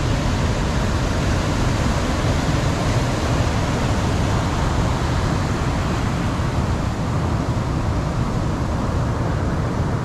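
Heavy ocean surf breaking on a sandy beach: a steady, unbroken rush of wave noise, strongest in the low end.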